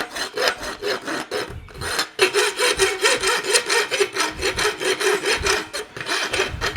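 Farrier's rasp filing a hot-forged steel horseshoe held in a vise, in quick repeated strokes. The strokes break off briefly about two seconds in, then go on with a steady note under them.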